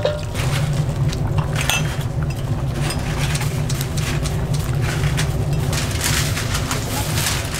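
Kitchen clatter: scattered clinks and taps of utensils and dishes over a steady low hum.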